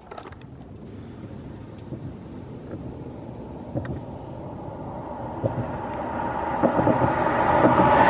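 Twin-engine jet airliner on final approach with its landing gear down: a low rumble and the engines' whine grow steadily louder as it nears.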